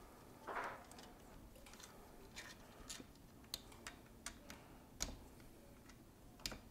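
Faint, scattered small metal clicks and ticks of a screwdriver and lock screws being worked out of a French Charleville flintlock musket's lock, with a short rustle about half a second in.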